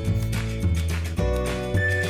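Background music: a steady bass line under sustained chords, with a melody note held and sliding.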